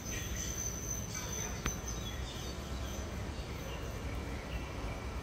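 Trackside outdoor ambience: a steady high-pitched trill with scattered short chirps over a low rumble, and one sharp click about a second and a half in. The approaching metro train is still too far off to stand out.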